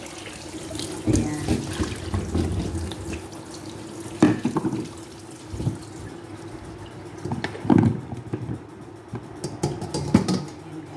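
Water poured from a bowl of sliced potatoes through a metal colander into a stainless-steel sink, draining off the salted soaking water; the pouring stops about halfway through. A few sharp knocks of the bowl and colander follow, over a faint steady hum.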